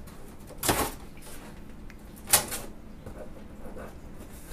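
Cardboard shipping box being opened by hand: two short scraping rustles of cardboard and packing, about a second and a half apart.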